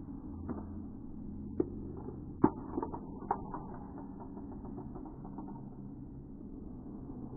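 Small plastic K'NEX pieces, a pig figure and blocks, being knocked over and clattering onto a hardwood floor: a few sharp clicks over about three seconds, the loudest about two and a half seconds in, over a steady low hum.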